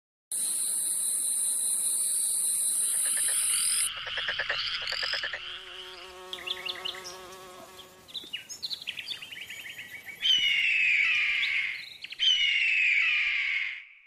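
A sequence of insect and animal calls: a steady high insect buzz that cuts off about four seconds in, then rapid trilling and wavering chirps, and near the end two loud calls that each fall in pitch over about two seconds.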